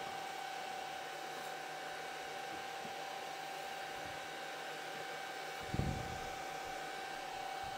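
Cooling-tray fan of a Kaleido M6 coffee roaster running, a steady rush of air with a steady whine, drawing air through freshly dropped roasted coffee beans to cool them. A brief low thump comes about six seconds in.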